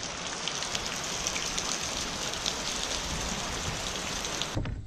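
Steady rain falling and pattering on the wet ground and surfaces, an even hiss full of small drop ticks that cuts off abruptly just before the end.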